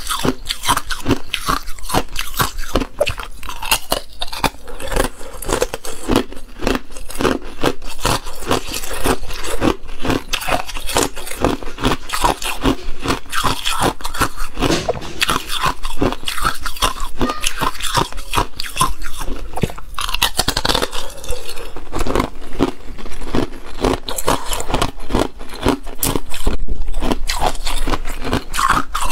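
Small ice cubes bitten and chewed, a dense, unbroken run of sharp crunches and cracks.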